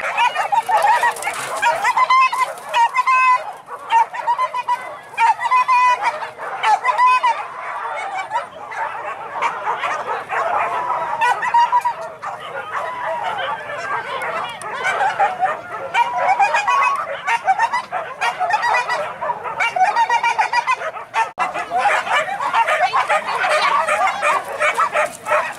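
A pack of hunting dogs yelping and baying excitedly, many high-pitched calls overlapping without a break.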